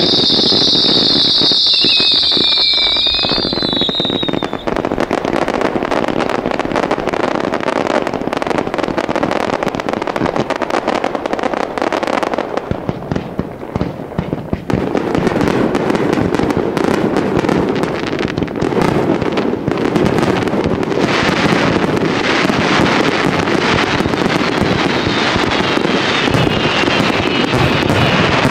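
Fireworks display: a dense, unbroken barrage of shell bursts and crackling. A high hiss fades out in the first few seconds, and the barrage thins briefly around the middle before building again.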